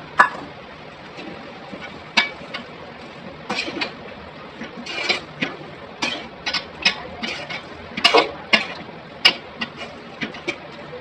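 A metal ladle clinking and scraping against a kadai, with irregular sharp knocks, some in quick runs, as okra is stirred with tamarind extract.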